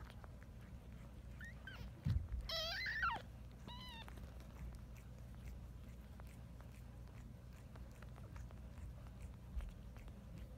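Newborn Siamese kitten giving three short, high-pitched, wavering mews between about one and a half and four seconds in, the middle one the loudest. A dull thump comes just before it.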